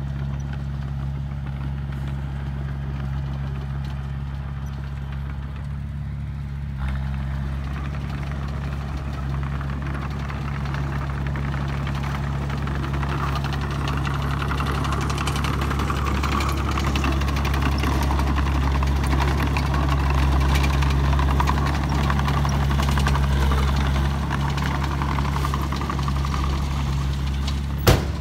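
Small crawler bulldozer's diesel engine running steadily, with track and blade clatter as it grades the soil. It steps up in loudness about seven seconds in and swells further through the middle. A single sharp click comes near the end.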